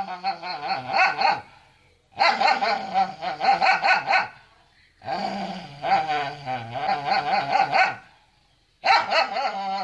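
White dog vocalizing in long, wavering bouts of rapid barks and howls, each about two to three seconds with short pauses between; it is complaining at being refused food.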